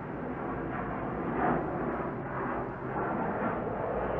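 Jet noise from an F-35B Lightning II flying past overhead: a steady rushing roar from its single turbofan that swells a couple of times as it passes.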